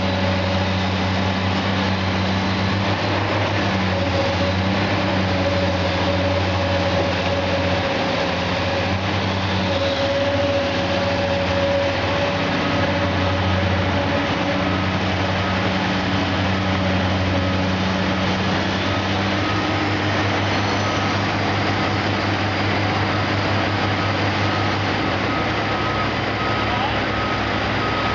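Truck engine running steadily, with a faint reversing beeper sounding in evenly spaced beeps from about halfway in.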